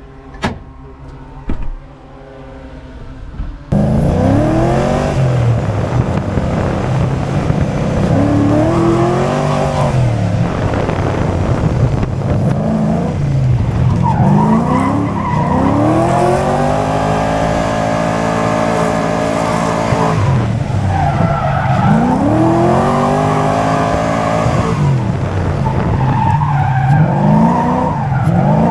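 A few clicks, then about four seconds in a sudden cut to a drift car's engine revving hard, its pitch rising and falling again and again, over the hiss of tyres skidding.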